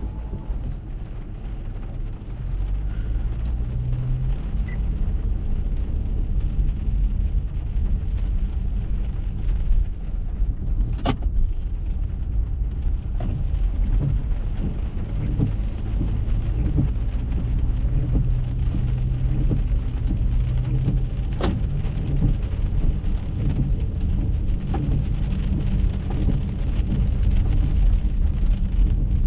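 Rain falling on a car's roof and windshield, heard from inside the car over a steady low rumble, with many small taps of drops. Two sharper knocks come about 11 and 21 seconds in.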